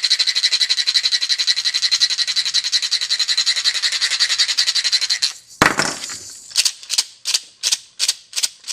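Hand percussion: a fast, continuous shaken rattle for about five seconds, then a sharp hit and a steady beat of short rattle strokes about three a second.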